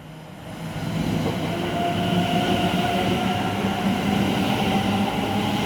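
Greater Anglia Class 720 electric multiple unit running through the station platform. Its sound builds over about the first second and then holds steady, a rumbling noise with several steady tones over it.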